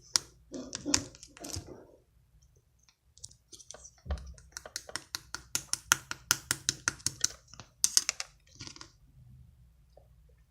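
Clear slime full of trapped air bubbles being pressed and worked by hand, making sharp clicking and popping sounds. A few scattered clicks at first, then a quick run of about five clicks a second for several seconds in the middle.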